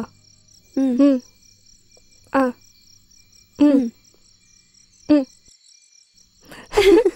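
An owl hooting in short single calls about a second or more apart, one of them a quick double hoot, over steady cricket chirring. Near the end a loud noisy burst with a raised voice breaks in.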